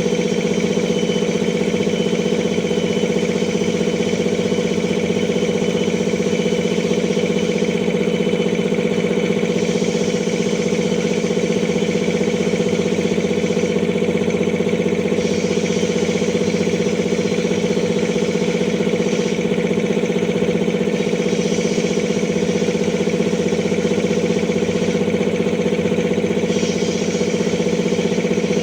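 Air compressor running steadily.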